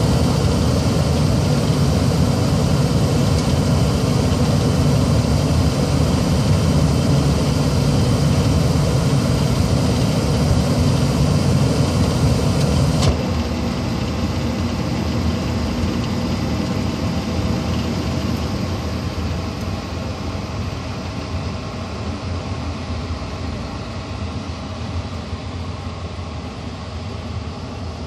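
1995 Tempstar SP80 gas furnace running with its gas burners lit and the draft inducer fan going. About thirteen seconds in a click sounds and the low burner flame noise stops abruptly as the gas valve shuts off at the end of the heating cycle. The remaining fan noise carries on, slowly growing quieter.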